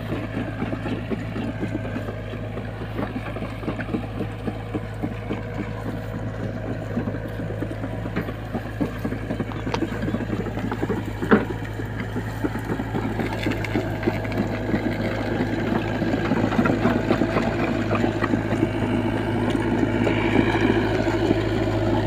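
Diesel engine of an SDLG crawler excavator running steadily with a fast even beat, growing louder in the second half. A single sharp knock about eleven seconds in.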